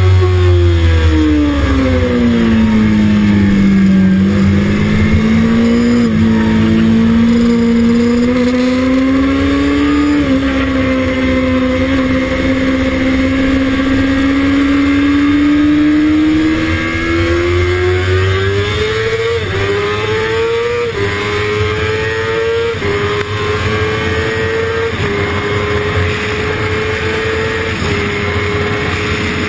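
Kawasaki ZX-6RR's inline-four engine heard from on board under riding: the revs fall over the first few seconds as the bike slows for a corner, then climb slowly and steadily through the corner. In the second half it accelerates hard through the gears, the pitch rising and dropping sharply at each of about five upshifts.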